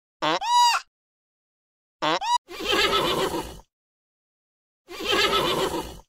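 Pony whinnying twice, each a rough call about a second long, the second starting about five seconds in. Before the first whinny come two short high-pitched chirps, one just after the start and one about two seconds in.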